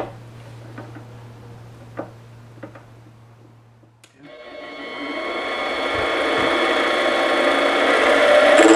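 A few light clicks and knocks as the work is handled at the chuck. About four seconds in, a small metal lathe's motor starts and its spindle runs up to speed, a steady machine whine with several fixed tones that grows steadily louder.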